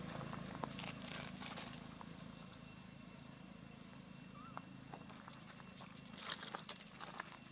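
Footsteps crunching on dry leaves and gravel: a few scattered crackles at first, then dense crackling rustle from about six seconds in.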